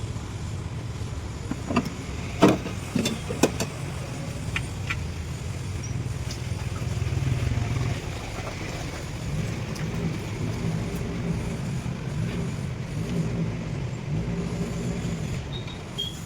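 Maruti Alto 800's three-cylinder petrol engine running steadily, with a few sharp clicks about two to three and a half seconds in.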